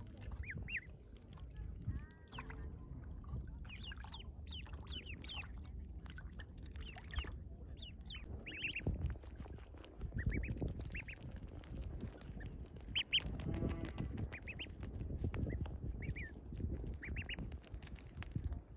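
A group of domestic ducklings peeping: many short, high chirps in scattered clusters, over a low rumble.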